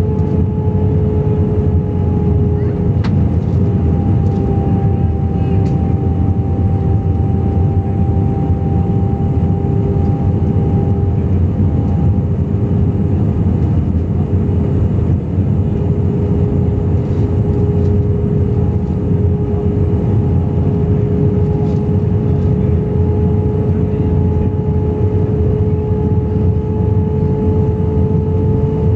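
Airliner cabin noise during the descent before landing, heard from a window seat over the wing: a steady, dense rush of jet engines and airflow, with a droning hum held on two pitches that waver slightly.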